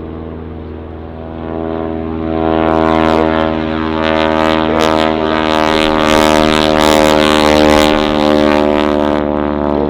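Boeing Stearman biplane's radial engine and propeller droning at steady power as the aircraft passes close by. It grows louder over the first few seconds, stays at its loudest through the middle and eases slightly near the end.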